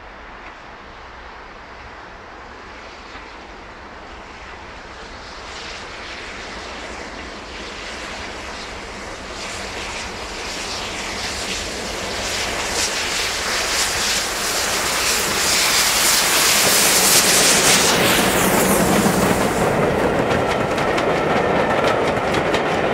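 Steam locomotive working hard as it hauls a train towards and past, its rapid exhaust beats growing louder to a peak about two-thirds of the way in. Near the end comes the clatter of the coaches' wheels over the rail joints.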